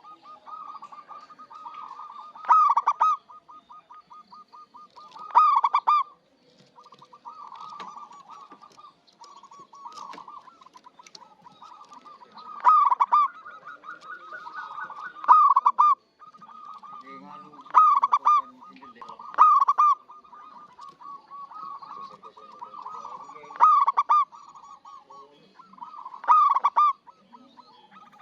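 Zebra dove (perkutut) cooing. Loud bursts of its ringing song come every two to three seconds, with quieter rapid strings of cooing notes in between.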